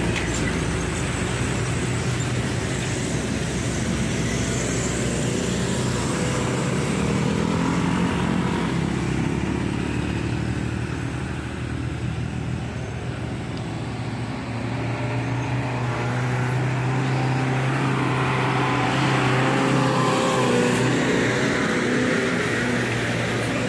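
Uphill road traffic: a loaded dump truck's diesel engine labouring on the climb as motorcycles pass, with a steady low engine drone. The drone eases a little about halfway, then builds again as a bulk cement tanker truck comes up the hill.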